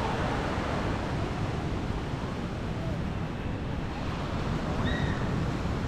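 Wind buffeting the microphone over a steady wash of ocean surf, with a single short high chirp about five seconds in.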